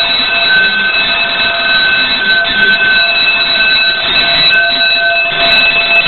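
Interconnected home fire alarms sounding continuously: a 6-inch fire bell ringing together with a Roshni electronic sounder, loud and steady without a break.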